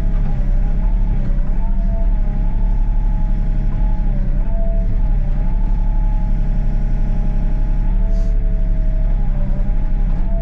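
Excavator's diesel engine running steadily with a deep rumble, while a hydraulic whine wavers up and down in pitch as the controls are worked during digging.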